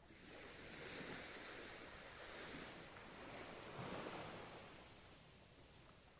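Ocean wave surging in and washing back: a hiss of surf that swells up at the start, peaks about four seconds in, and fades away.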